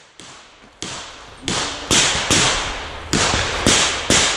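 Smith & Wesson Model 325 revolver in .45 ACP firing several shots in quick, uneven succession. Each report is sharp and fades over a fraction of a second.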